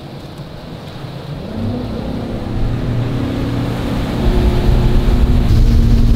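Bass boat's outboard motor throttling up to get under way. Its note rises about a second in and then holds steady, getting much louder over the next few seconds.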